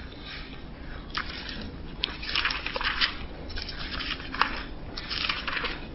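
Thin Bible pages rustling and being turned in several irregular flurries of crackly paper sound, as the book is leafed through to find a passage.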